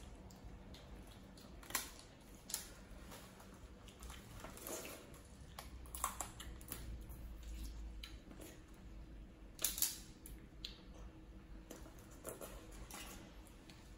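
Close-up eating of crab: sharp clicks and cracks of shell being broken and picked apart, about half a dozen spread out, two of the loudest close together about two-thirds through, over soft wet chewing and squishing.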